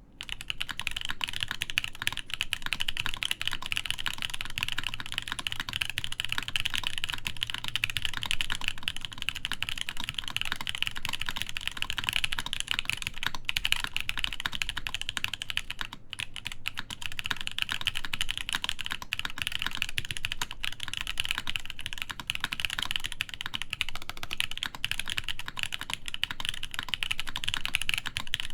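Typing on a SINGAKBD Jaguar v2 top-mount mechanical keyboard with a full aluminium plate and JWK/Moyu Poseidon switches lubed with Krytox 205g0: a dense, steady stream of keystrokes.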